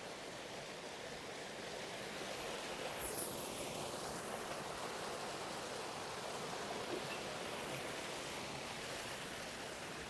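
Waterfall water rushing and splashing, an even, steady noise with a brief swell about three seconds in.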